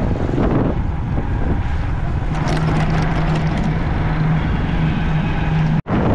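Ride noise from a motorcycle moving along a road: wind rushing over the microphone with the engine running underneath, a steady low hum holding through the middle. The sound cuts out abruptly for an instant near the end.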